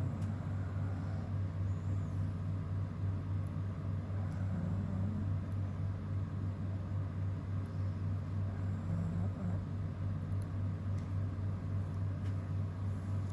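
A steady low hum at an even level, with a few faint ticks scattered over it.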